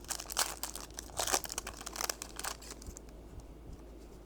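Foil wrapper of a Magic: The Gathering play booster being torn open and crinkled, a run of crackling rustles that stops about three seconds in.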